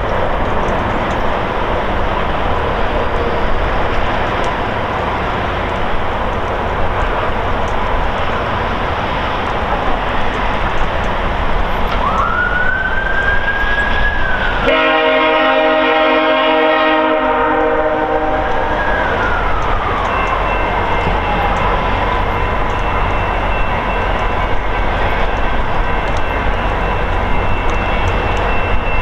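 VIA Rail locomotive approaching over steady noise; about fifteen seconds in its horn sounds a loud multi-note chord for about three seconds. A tone rises just before it and falls away after it, and fainter steady tones follow.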